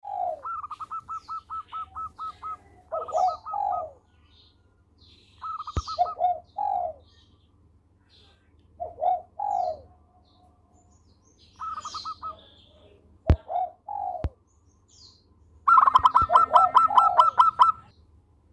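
Zebra dove (perkutut) cooing: each phrase is a quick run of short, clipped notes followed by two or three lower, rounder coos, repeated several times, loudest and busiest near the end. Fainter chirps of other small birds and a few sharp clicks are heard between phrases.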